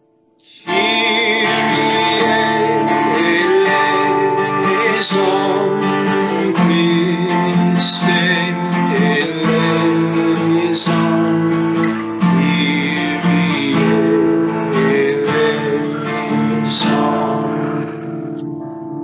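A man singing slowly to his own strummed acoustic guitar. The music starts just under a second in; near the end the voice stops and the last guitar chord rings and fades.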